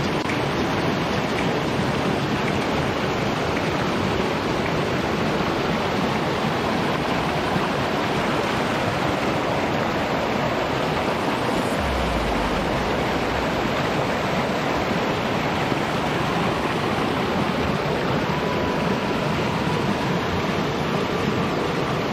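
Rocky forest stream rushing and splashing in small white-water cascades over boulders: a steady, full noise of falling water. A brief low rumble comes about halfway through.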